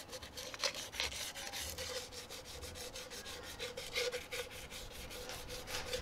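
P240 emery cloth rubbed by hand over the aluminium casing of a Honda 400 motorcycle engine, in quick repeated back-and-forth strokes, roughing the surface so etch primer will key to it.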